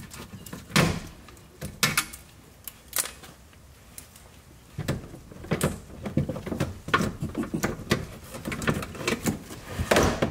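Plastic engine splash guard under a car being worked loose by hand and pulled down: a string of irregular sharp plastic clicks, knocks and rattles.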